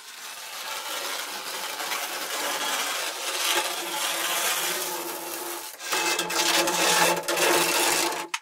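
Long rasping scrape of material being worked off the edge of a freshly laminated carbon-fiber wing skin. After a brief break near six seconds, a second, louder stretch follows and stops abruptly at the end.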